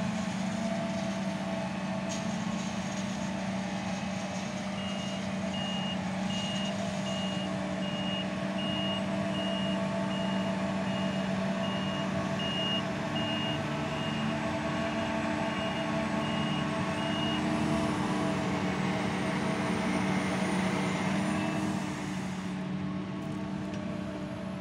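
Diesel engines of a self-propelled forage harvester and a tractor hauling a silage trailer running steadily, with a high reversing alarm beeping about once a second from about five seconds in until about seventeen seconds in.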